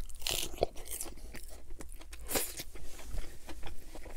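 Close-miked biting and chewing of a lettuce-wrapped burger: crisp lettuce crunching. Loud crunches come about half a second in and again about two and a half seconds in, with a run of smaller crunches as he chews.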